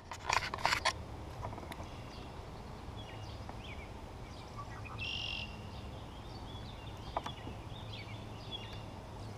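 Small birds chirping now and then over a steady low outdoor rumble, with a few knocks in the first second.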